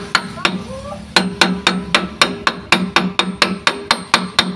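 Rapid hammer blows on a metal tool held against a scooter-engine flywheel's centre. Two strikes come first, then after a short pause an even run of about five a second. Each blow has a short metallic ring.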